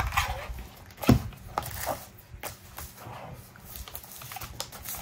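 Paper being trimmed and handled: a run of short, crisp snips and rustles, the sharpest about a second in.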